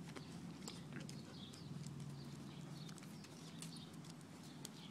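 Dogs moving close up against the phone: faint, scattered clicks and taps over a low steady hum.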